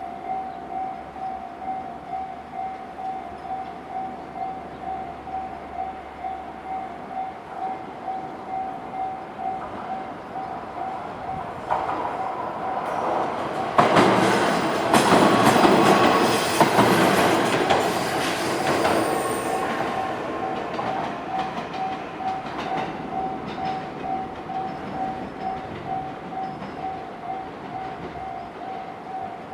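A Japanese level-crossing warning bell dings in an even, rapid rhythm. A train passes over the crossing with rumbling wheels and rail noise, building from about 12 seconds in, loudest over the following several seconds, then fading while the bell keeps ringing.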